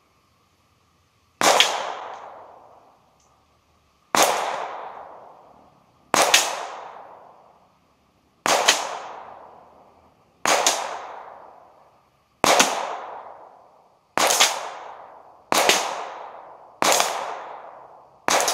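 Ruger 22/45 .22 LR pistol fired unsuppressed from about 100 yards away: ten sharp shots at uneven intervals of one to three seconds, each report followed by a long fading echo.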